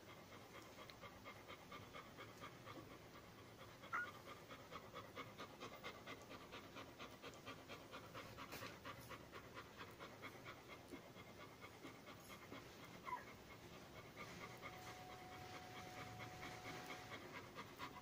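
Yellow Labrador retriever mother panting quickly and evenly, faint, with two brief high squeaks from her nursing puppies, about four seconds in and again near thirteen seconds.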